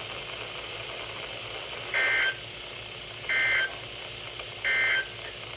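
Three short bursts of EAS/SAME digital data tones, the chirping end-of-message signal that closes an Emergency Alert System warning, each about a third of a second long and spaced about a second and a half apart, over steady radio hiss.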